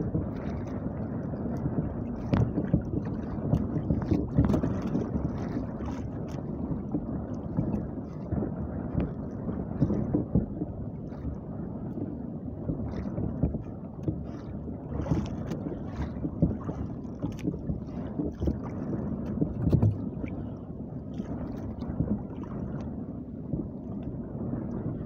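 Wind buffeting the microphone and choppy sea water slapping against the hull of a small wooden outrigger canoe, with scattered light knocks.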